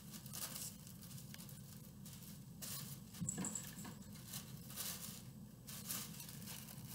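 Tissue paper rustling and crinkling in several short bursts as it is handled and unfolded.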